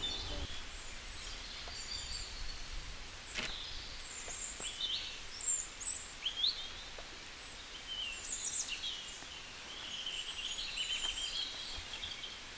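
Small birds chirping, short high calls scattered throughout over a faint outdoor background, with a single sharp tap about three and a half seconds in.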